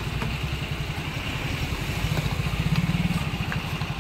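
Engines of a car and a small goods truck running as they pass close by over a level crossing: a steady, evenly pulsing low throb that swells a little about two and a half to three seconds in.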